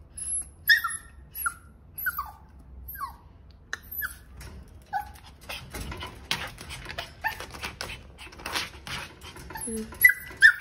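A small puppy whining and yipping: a string of short, high calls that drop in pitch, with a stretch of scratchy noise in the middle.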